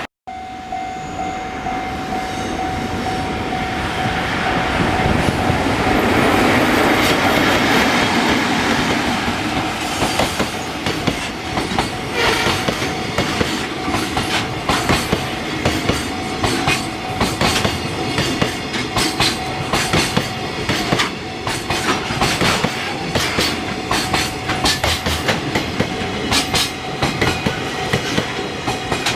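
A train approaching and running over a railway level crossing: a rush of noise builds, then from about ten seconds in the wheels clack rapidly over the rail joints. The crossing's warning bell is sounding as a steady tone.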